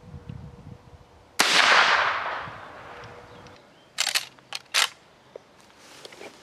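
A single shot from a Chiappa 1892 lever-action carbine about a second and a half in: a sharp crack with a long echoing tail. A couple of seconds later comes a quick run of short metallic clacks as the lever is worked.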